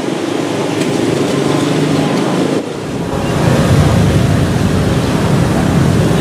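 Engine noise of a Piaggio P.180 Avanti twin pusher turboprop in flight: a steady noisy drone that gets louder and deeper about three seconds in.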